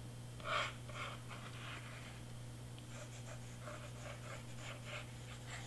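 Faint scratching and rustling of a craft glue bottle's nozzle drawn across cardstock while paper pieces are handled, in short irregular strokes with a slightly louder one about half a second in, over a steady low hum.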